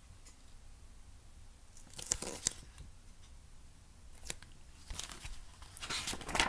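Paper rustling and crinkling as a picture book is handled and its pages turned, in short bursts: one about two seconds in, a brief one near four seconds, and a longer spell near the end.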